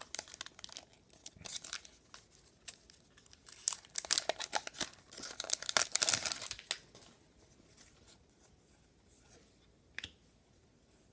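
A 2015-16 Upper Deck SPX hockey card pack's wrapper being torn open and crinkled, with cards rustling in the hands. The crackling stops about seven seconds in, and a single faint click comes near the end.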